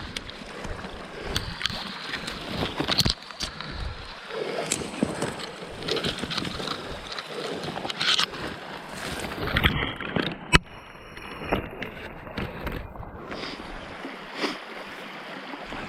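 Water sloshing and splashing around an Alpacka packraft, with scattered knocks and scrapes and one sharp click about ten and a half seconds in, plus wind on the microphone.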